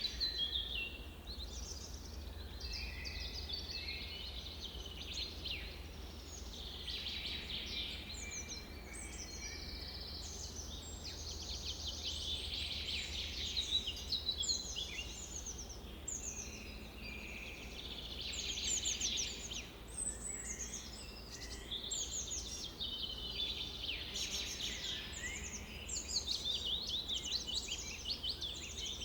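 A chorus of several songbirds singing and calling over one another, an almost unbroken stream of quick chirps and trills, over a low steady rumble.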